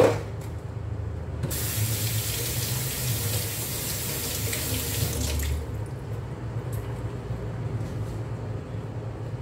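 Kitchen tap running into a stainless steel sink as a block of tofu is rinsed under the stream. The water comes on about a second and a half in and cuts off suddenly about four seconds later. A sharp knock sounds at the very start.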